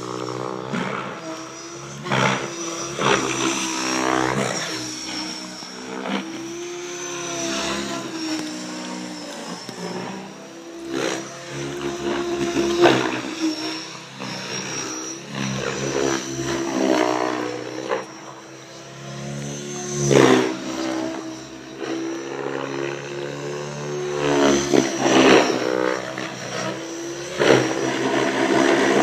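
Mikado Logo 700 XXTreme electric RC helicopter flying aerobatics. Its main rotor and Scorpion brushless motor drone and whine, the pitch bending up and down as the blades load and unload, with several brief loud surges as it manoeuvres.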